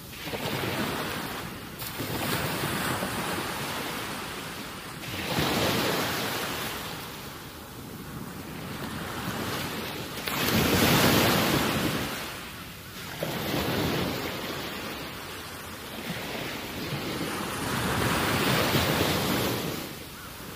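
Wind gusting over the microphone: a rushing noise that swells and fades every few seconds.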